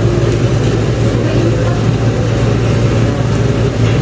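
Steady low machine hum with no change in pitch or strength.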